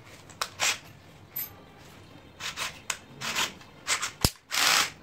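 A drill bit being changed in an IKEA cordless drill's chuck by hand: scattered rubbing and rattling as the metal bit and chuck are handled, with a sharp click about four seconds in and a short rasp just after. The drill's motor does not run.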